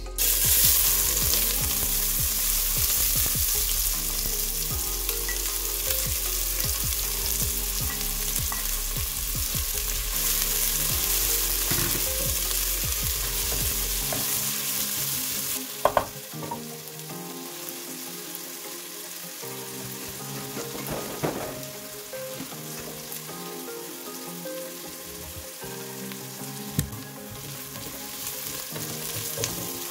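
Chopped onion hitting hot vegetable oil in a stainless steel pot, sizzling loudly at once, while a wooden spoon stirs it. The sizzle drops to a quieter, steady frying about halfway through, with a few sharp knocks of the spoon against the pot.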